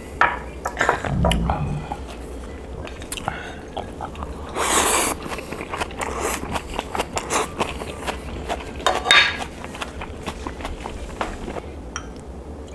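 Close-miked eating: clicks of chopsticks against a small dish, with chewing and mouth noises as food is taken in, and louder noisy bursts about five and nine seconds in.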